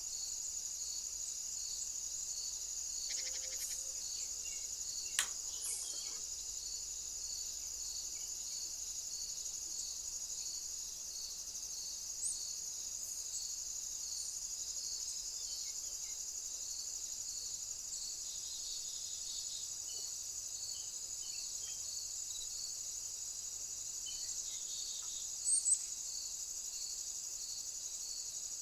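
Insects chirping steadily, crickets or bush crickets: a continuous high-pitched trill with a regular pulse of about two chirps a second. A few faint clicks stand out, one about five seconds in and a couple near the end.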